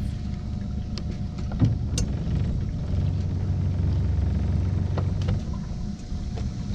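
Boat's outboard motor running at low speed, a steady low hum that grows a little stronger from about three to five seconds in, with a few light clicks.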